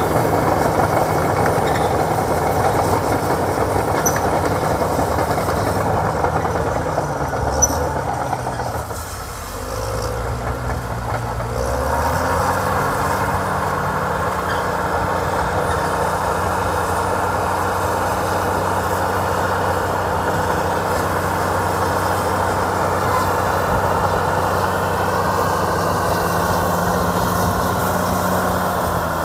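Caterpillar D6T crawler dozer's diesel engine working, with a steady pitch. Roughly eight seconds in, the engine note sinks and then climbs back up over a few seconds before running steady again.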